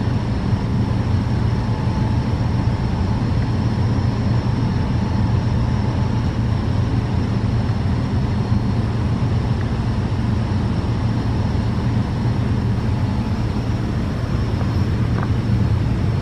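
Natural gas compressor station running: a loud, steady low hum from its compressor machinery, with a faint thin whine above it.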